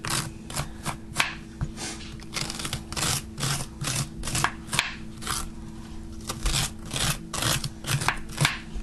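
Metal spoon scraping the white ribs out of the inside of a green bell pepper, in quick repeated strokes, about three a second. A faint steady hum lies underneath.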